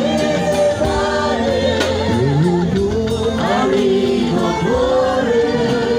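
Church choir singing a gospel song, with vibrato in the voices and percussion accompaniment.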